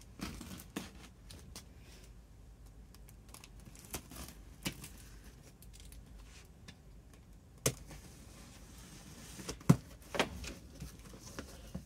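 A cardboard box being opened: a cutter slits the packing tape, then the tape is peeled off and the flaps are folded back. Scattered scrapes, taps and cardboard rustles, with a few sharper knocks about two-thirds of the way through.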